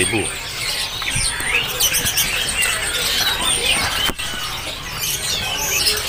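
Many caged songbirds chirping and calling at once, a dense overlapping chorus of short high chirps and whistles, with a single sharp click about four seconds in.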